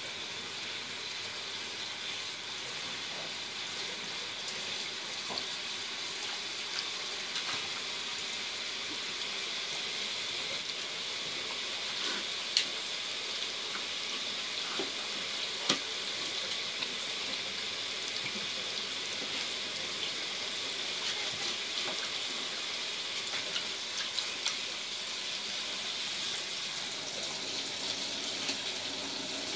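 Kitchen tap running steadily, water splashing into a bowl in a stainless steel sink, with a few sharp clinks of dishes being handled by a raccoon, the loudest two near the middle.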